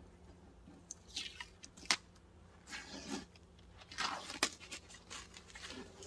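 Tape being peeled off a wooden beehive box in several short ripping, rustling pulls, with a couple of sharp clicks in between.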